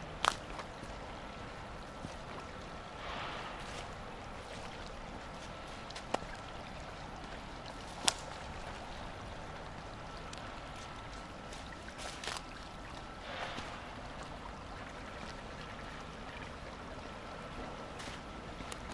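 Steady rush of a shallow stream flowing along a concrete drainage canal, broken by a few sharp clicks and a couple of soft scuffs.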